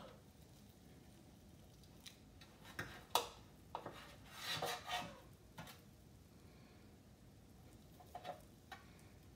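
Scattered metal clicks and clinks from a rotisserie spit rod and its skewer forks being slid and adjusted by hand, knocking against a stainless steel drip tray. They cluster between about three and five seconds in, with the sharpest click near three seconds, and a few lighter taps come near the end.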